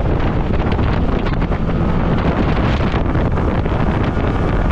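Wind rushing over the microphone on a small boat running at speed under an outboard motor, with the motor and water noise underneath. Loud and steady throughout.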